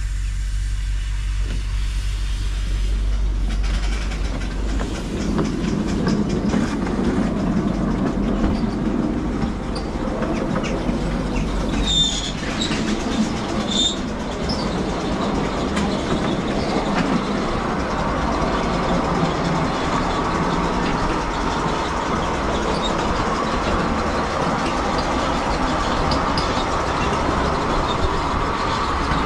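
Miniature railway train running along the track, its wheels clattering and rumbling steadily, with two brief high squeaks near the middle.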